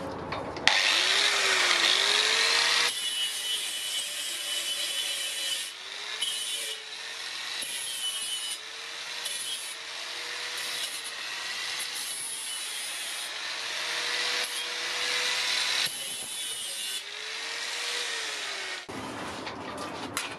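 Handheld power tool with a spinning abrasive disc grinding across a sheet-metal plate to clean its surface. It gives a loud, hissing, scraping grind over a motor hum whose pitch dips and recovers as the disc is pressed on. It starts about a second in, changes abruptly several times, and stops shortly before the end.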